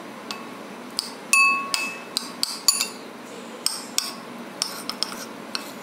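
Metal spoon clinking against a ceramic bowl while stirring and mashing butter, with a dozen or so irregular clinks. A few of them ring briefly, the loudest about a second and a half in.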